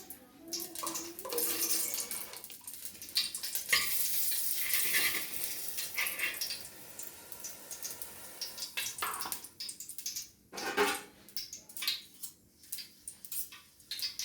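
Metal spoon clinking and scraping against a pan and a container as ghee is spooned into a hot pan for payasam, with a stretch of sizzling a few seconds in.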